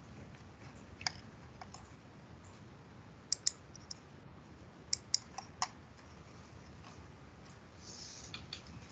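Scattered sharp clicks at a computer, about ten in small clusters, over faint steady room noise.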